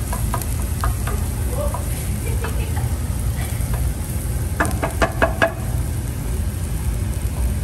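Wooden spoon stirring and scraping chopped onion, garlic and ginger frying in butter in a nonstick pan, with quiet sizzling over a steady low rumble. About two-thirds of the way through comes a quick run of about five sharp knocks of the spoon against the pan.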